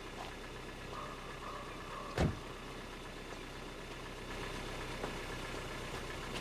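Car engine idling steadily, with one sharp thump about two seconds in.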